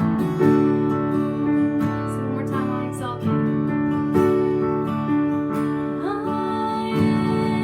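Worship song with acoustic guitar and a singing voice.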